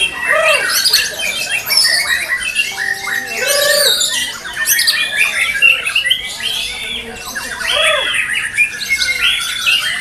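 White-rumped shamas (murai batu) singing in competition, several at once: a dense, overlapping stream of quick rising and falling whistles and trills.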